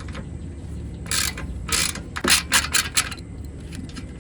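Hand ratchet wrench clicking in a quick run of short strokes, starting about a second in and stopping about three seconds in, as it loosens a 10 mm bolt.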